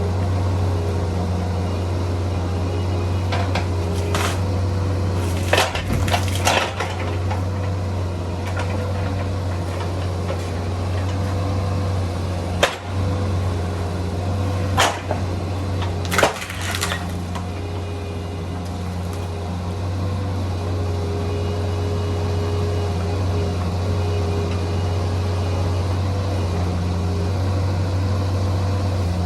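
Bobcat 341D mini excavator's diesel engine running steadily under load, with several sharp cracks of splintering wood in the first half or so as a big stump and its roots give way.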